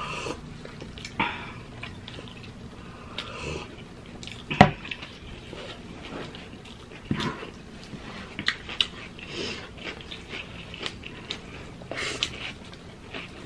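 Close-up eating sounds: chewing, lip smacks and wet mouth clicks, and fingers picking rice and sliced hotdogs off a wooden board. A single sharp knock about four and a half seconds in is the loudest sound.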